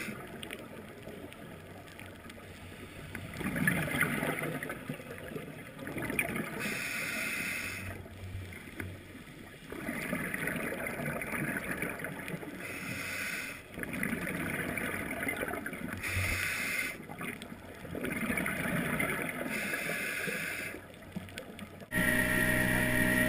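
Scuba diver breathing through a regulator, heard underwater: bubbly bursts of exhalation every few seconds with quieter gaps between them. Near the end it cuts suddenly to a small boat's engine running over rushing water.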